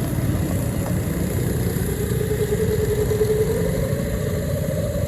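Small engine of a homemade track sled running steadily, its pitch rising a little about three and a half seconds in.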